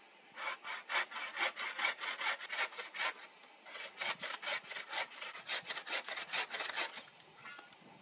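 Hand saw cutting through a dead wooden pole, rasping push-and-pull strokes at about five a second, in two runs with a short pause about three seconds in.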